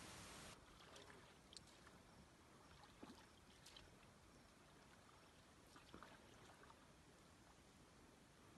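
Near silence, with a few faint, scattered small ticks.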